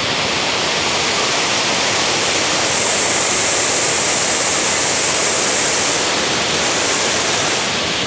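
Waterfall and rapids: white water rushing steadily and loudly over and between rocks.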